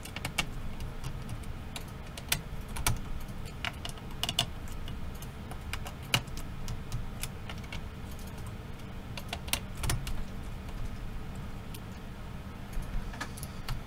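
Scattered light clicks and taps, irregularly spaced, as fingers handle the metal heatsink and plastic fan parts inside an open laptop, over a low steady background hum.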